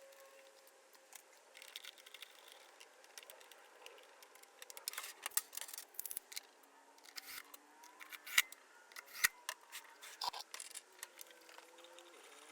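Scattered sharp clicks and taps, two of them loudest about eight and nine seconds in, over a faint background.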